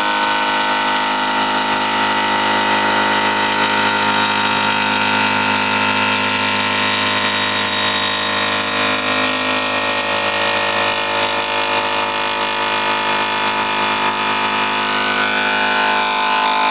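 Top Well CNC vertical machining center milling steel parts held four to a fixture. The spindle and cutter give a steady whine made of many held pitches at once.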